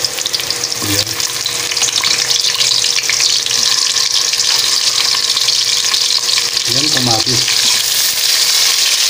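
Garlic, onion and tomato sautéing in hot oil in a wok: a steady sizzle full of fine crackles, while a metal spoon stirs them.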